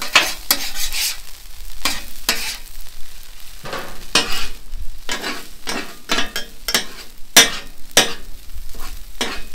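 Steel spatulas scraping and clacking on a hot flat-top griddle as fried rice is tossed and chopped, in irregular strokes about two a second, over the steady sizzle of the rice frying.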